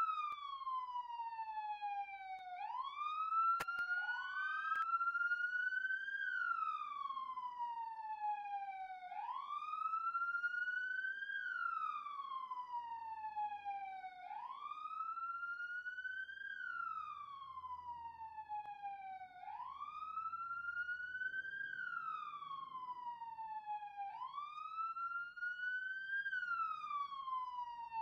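Police siren wailing, its pitch rising quickly and then falling slowly, over and over about every five seconds. About three seconds in, a second wail briefly overlaps the first.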